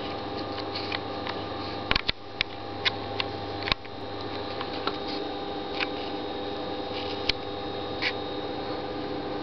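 Breathing of the person filming, heard close to the microphone as short puffs, with several sharp handling clicks in the first four seconds, over a steady hum.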